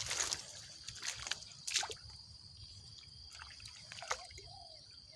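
Water sloshing and a few short, sharp splashes as a fish caught on a set hook line thrashes at the surface while the line is pulled in; the last splash comes about four seconds in.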